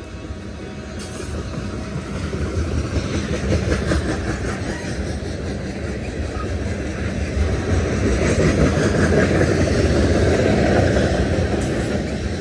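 Loaded railroad tank cars of a freight train rolling past close by, their steel wheels rumbling on the rails, the rumble growing louder through the first part.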